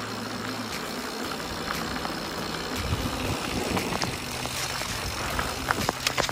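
A mountain bike rolling fast over a gravel and dirt trail: steady tyre rumble on loose gravel with wind rushing over the microphone, and a few sharp rattles and knocks from the bike over bumps near the end.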